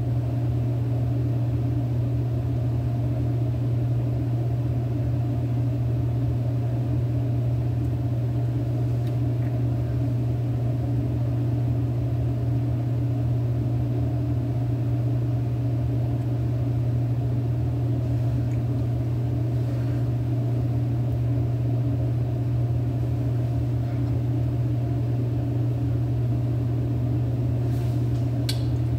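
Steady low machine hum that does not change, with a couple of faint clicks near the end.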